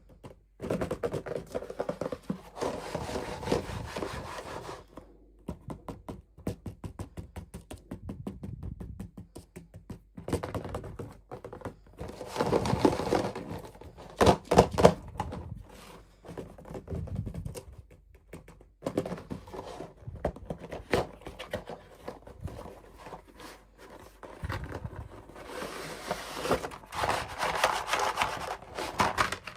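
Hands unboxing toy doll packaging close to the microphone: plastic and cardboard tapped, knocked and crinkled, with several longer stretches of rustling.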